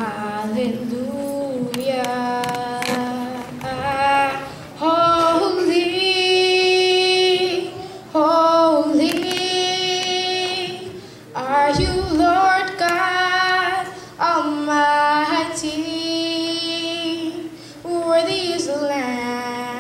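A high solo voice singing a slow melody in phrases of a few seconds each, with long held notes and short breaks between phrases.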